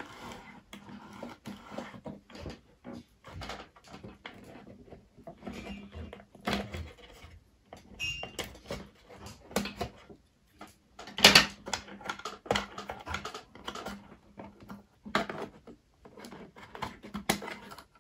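Irregular clicks, rattles and knocks of hands working inside the opened plastic housing of an electric tobacco filling machine, pulling wires and connectors free and moving the control board, with one sharper knock about two-thirds of the way through.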